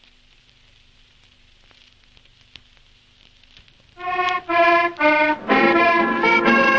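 Faint hiss with a few light clicks, then about four seconds in a tango's accordion comes in with three short staccato chords and runs straight on into a full, continuous melody.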